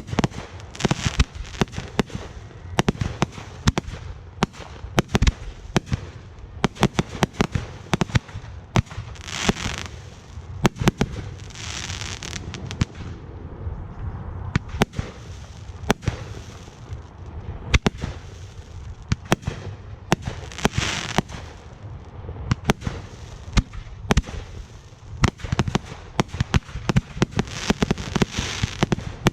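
Fireworks display: aerial shells bursting in rapid, near-continuous bangs, with several stretches of crackling hiss among them.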